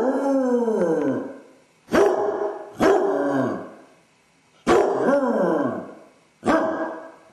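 Basset hound baying: five drawn-out howling barks, each starting suddenly and sliding down in pitch over about a second. A dog left home alone in distress, a sign of separation anxiety.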